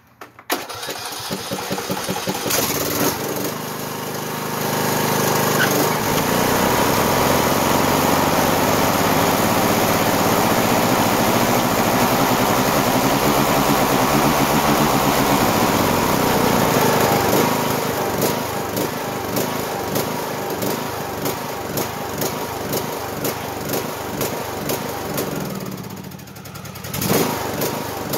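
Ariens riding mower engine starting and running, louder from about five seconds in, then dropping back and running less evenly with a brief dip near the end. It is running on the last fuel left in the lines after the tank was drained, to empty the fuel system for winter storage.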